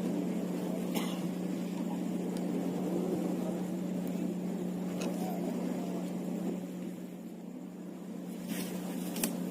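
A motor running steadily with a constant low hum, and a few faint clicks.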